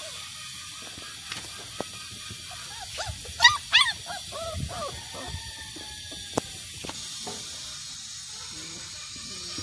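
German shepherd puppies yelping and whining: two sharp yelps about three and a half seconds in, followed by several short whimpers and a longer falling whine. A few light knocks and a steady hiss lie under them.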